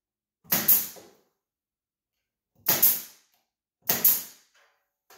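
Pneumatic nail gun firing three times into a wooden beehive frame, each shot a sharp crack with a short hiss of exhaust air. The last two shots are about a second apart.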